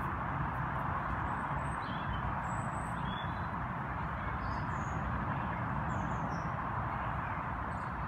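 Outdoor field ambience: a steady rushing background noise with a low rumble, and several short, high bird chirps a couple of seconds in.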